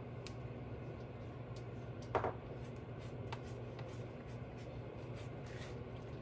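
Silicone pastry brush dabbing and stroking milk onto a sheet of puff pastry: faint soft scratchy strokes and light taps, with one sharper tap about two seconds in, over a low steady hum.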